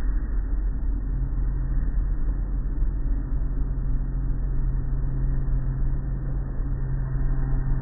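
Tunnel car wash machinery running, heard through the glass of the viewing window: a steady low rumble, with a steady low hum setting in about a second in.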